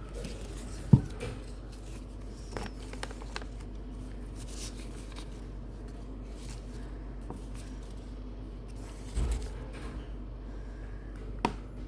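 Small items and packaging being handled by hand: scattered light clicks and rustles over a steady low hum, with a sharp knock about a second in and a duller thump near the 9-second mark.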